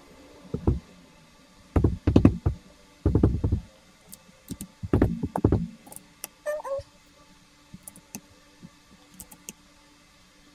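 Knocks and thumps of a mechanical keyboard being handled and set down on a desk, in four short clusters over the first six seconds, followed by a brief squeak and a few light clicks.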